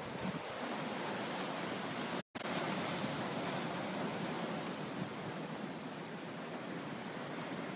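Rough storm-driven surf washing and breaking against a rocky seawall, a steady rush of noise. It cuts out for a split second a little over two seconds in.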